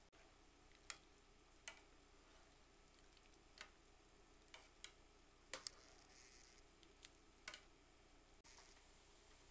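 Pot of squid parboiling in water, faint and bubbling, with about ten sharp, irregular clicks as a mesh skimmer works through the pot.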